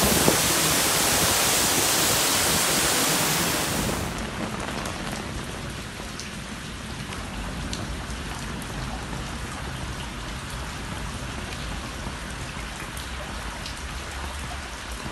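Heavy downpour of storm water: a loud, dense, steady rushing hiss. About four seconds in, it drops abruptly to a quieter, steady rain sound with scattered drips and splashes.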